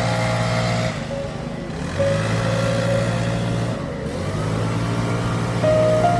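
Background music: a synth melody of held, stepping notes over sustained bass notes, in a phrase that repeats about every two seconds.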